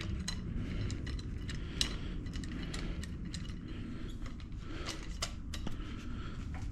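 Scattered light metallic clicks and clinks of hand tools and bolts being handled, over a low steady hum.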